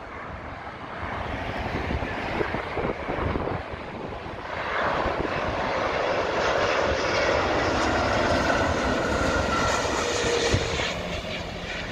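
Airbus A350's Rolls-Royce Trent XWB jet engines on final approach, passing low overhead: a rushing jet noise that swells about five seconds in, with a faint steady whine in it, then eases off near the end.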